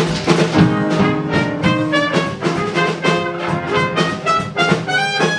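Instrumental swing-jazz band intro, with brass playing a melody of short changing notes over a bass line.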